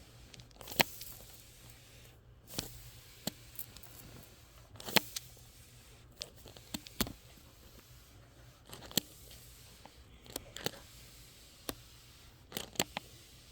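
Irregular small clicks and taps, with a few sharper knocks, over a quiet background.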